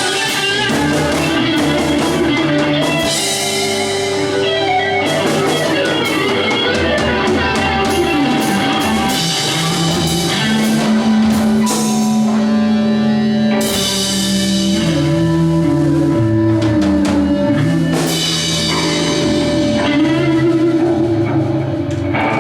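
Live rock band jam: electric guitar, bass guitar and drum kit playing together, with held guitar notes and melodic runs over a steady beat.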